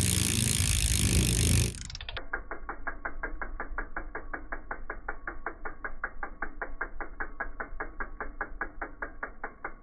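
A loud rushing noise that stops about two seconds in, then a BMX rear cassette hub's freewheel pawls ticking steadily as the wheel turns, about six muffled clicks a second.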